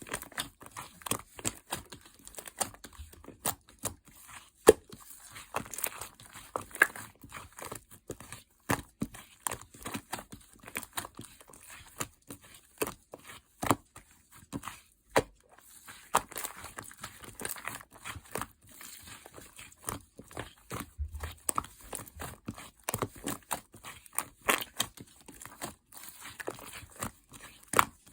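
Light-yellow clear slime being squeezed and pressed by hand, making irregular wet clicks and pops, several a second.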